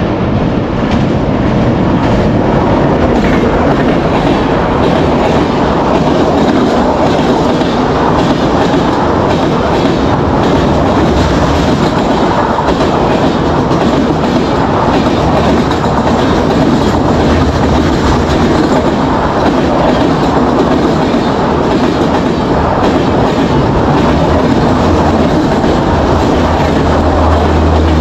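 Indian Railways express train of LHB coaches passing close at high speed: a steady loud rush of wheels and air, with a rapid clickety-clack of wheels over the rail joints.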